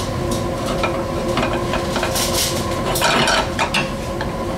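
Artichoke omelette frying in a small nonstick pan on a gas burner, with the metal pan jolted and scraped against the burner grate in small knocks to loosen the omelette, a cluster of scrapes and rattles about three seconds in. A steady hum runs underneath.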